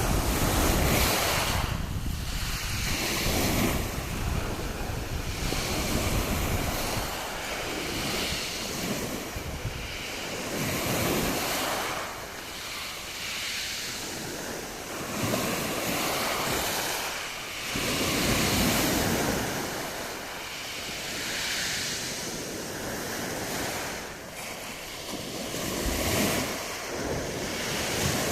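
Sea waves washing onto the shore, the surf swelling and falling back every few seconds, with wind buffeting the microphone.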